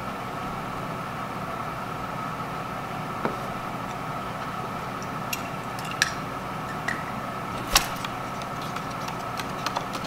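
Steady room hum with a faint high tone, and a handful of short, sharp clicks and taps scattered through it, one louder than the rest.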